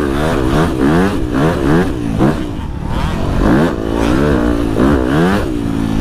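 Dirt bike engine revving up and down under throttle, its pitch rising and falling in quick, repeated sweeps.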